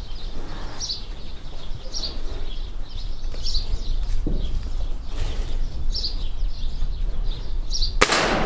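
Small birds chirping over and over in the background, then near the end a single sharp crack from a pellet gun firing.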